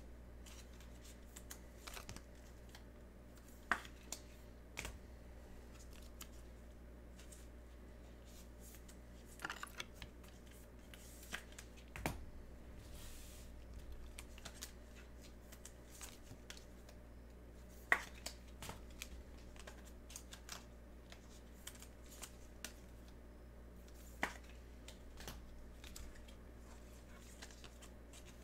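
Trading cards being handled and slid into rigid plastic toploaders: scattered light plastic clicks and taps with soft sliding, and a handful of sharper clicks.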